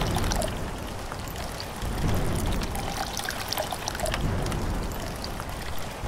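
Water pouring and splashing onto wet sand and rocks under falling rain, with many small drop ticks and a low rumble that swells and fades about every two seconds.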